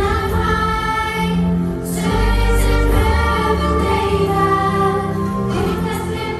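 A group of young singers singing a song together into microphones, with sustained sung notes over an instrumental accompaniment with a low bass line.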